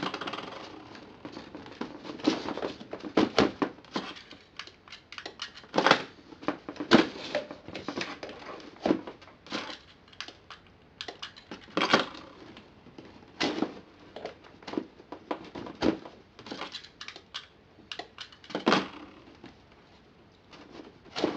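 Irregular sharp clicks as a remote-control surge protector's outlets are switched on and off from its remote, with clicks from the remote's buttons and the outlet relays. There are some louder knocks among them.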